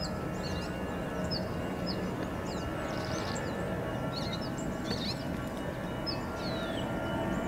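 Birds chirping repeatedly over a steady distant hum and faint whine of a jet airliner's engines running on the runway.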